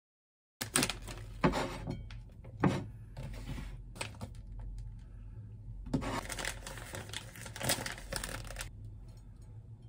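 Plastic pastry wrappers crinkling and rustling in three bursts as cruffins are pulled out of them, over a low steady hum.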